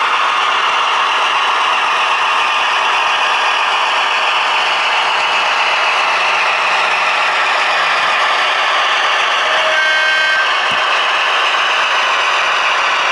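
Piko V 200 model diesel locomotive and its train running along the model railway track, with a steady mechanical whirring and rolling clatter of motor, gears and wheels. A brief high tone sounds about ten seconds in.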